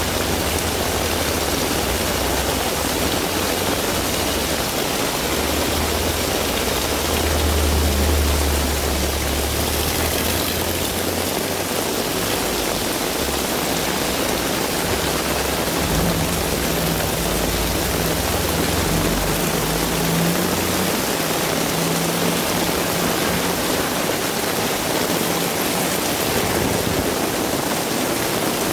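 Heavy rain falling steadily. A low engine rumble, swelling around eight seconds in, runs under it for the first ten seconds or so, and a steady low engine hum returns for a few seconds past the middle.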